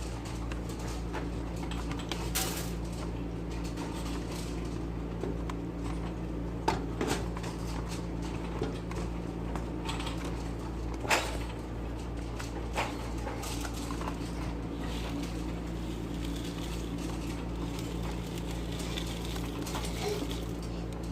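Hoover vacuum cleaner running with a steady hum, with scattered sharp clicks and crackles as crunchy debris is sucked up.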